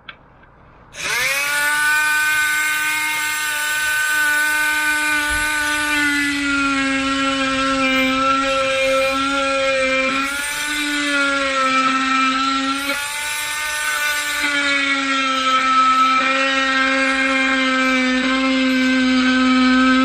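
Oscillating multi-tool (multi-cutter) starting about a second in and running steadily as it cuts a wooden board, its buzzing pitch sagging slightly now and then as the blade takes the load.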